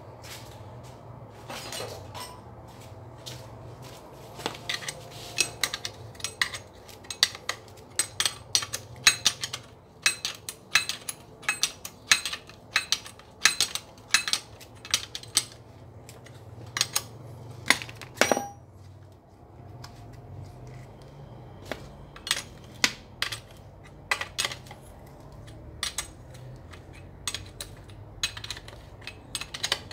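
Sharp metallic clicking and clinking of a 14 mm wrench on the head bolts of a high-pressure piston pump as the bolts are tightened. The clicks come quickly, about two a second, for over ten seconds, then thin out to scattered clicks.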